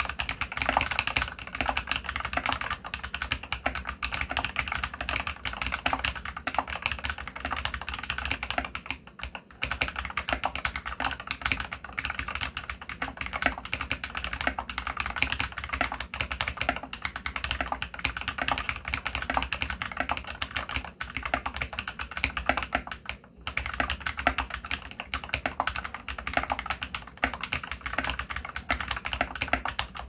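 Continuous fast typing on an Anne Pro 2 mechanical keyboard fitted with Krytox-lubed Glorious Panda tactile switches and felt and Thinsulate foam dampening inside the case. The key presses run as a dense stream of clicks, with brief pauses about 9 and 23 seconds in.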